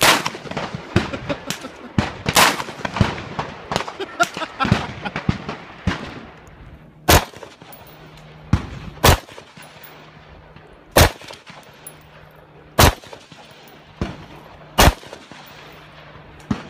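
Gunshots echoing: a rapid, overlapping flurry of shots in the first few seconds, which begins while a revolver is being fired. After that comes an AR-15-style rifle fired in slow, single aimed shots, about eight of them, one to two seconds apart.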